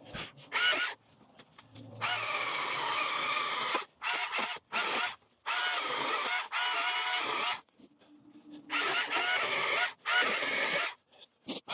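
Cordless Greenworks electric power tool running in a series of trigger bursts of about one to two seconds each, its motor pitch sagging and recovering as it cuts.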